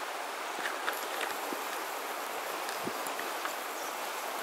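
Steady outdoor ambience on an open riverside pebble bar: a soft, even hiss with a few faint, scattered clicks.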